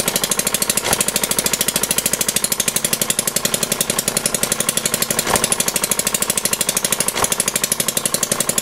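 A 1/4-scale Thompson air-cooled single-cylinder four-stroke model gas engine running at its one fixed speed, since it has no throttle butterfly, giving a rapid, even beat of firing pulses. Three sharper clicks stand out over the beat.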